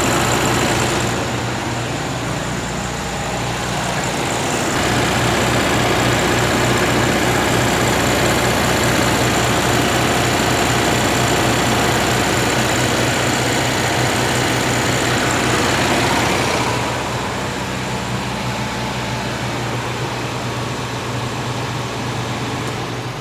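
1961 VW Beetle's air-cooled flat-four engine running on a test fire after being brought back to life. It runs louder and faster for about ten seconds in the middle, then settles back to a lower idle.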